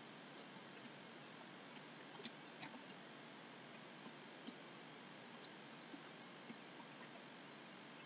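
Faint, scattered clicks and taps of a stylus writing on a digital pen tablet, over a steady low hiss; the sharpest tap is a little past two seconds in.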